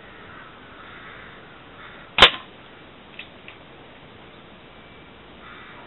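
A single sharp crack of an air gun shot about two seconds in, followed a second or so later by two faint short clicks.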